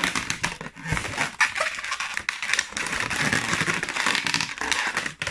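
Long latex modelling balloons rubbing against each other and the hands as they are twisted and folded: a dense, continuous crackling rub with many short scrapes.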